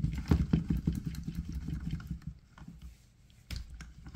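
A fingertip rubbing toothpaste around the inside of a snorkel mask's glass lens, micro-sanding off factory residue. It makes a fast, uneven run of low rubbing strokes that thins out about two seconds in and picks up again near the end.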